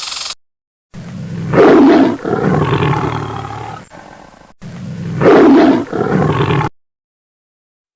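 A big cat roaring twice, each roar loudest at the start and then trailing off over a couple of seconds.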